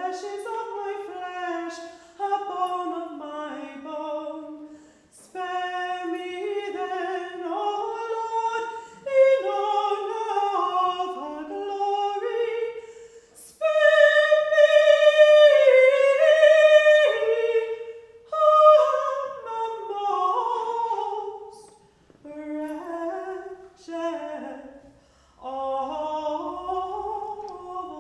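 A single unaccompanied voice singing a slow melody in phrases of a few seconds with short breaths between, with a louder, higher phrase about halfway through.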